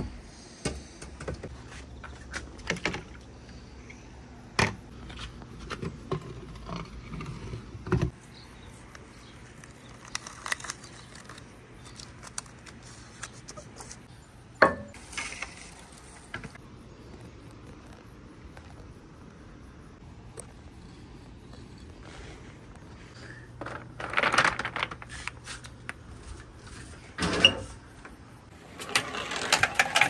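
Marbles and wooden balls rolling down a water marble run, giving scattered sharp clicks and knocks as they drop and strike the track, with a busier rattle about 24 seconds in and again near the end.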